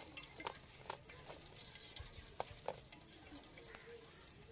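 Faint sizzling of hot frying oil in an aluminium pot, with a few sharp ticks and taps as a fried puri is lifted out on a wire skimmer.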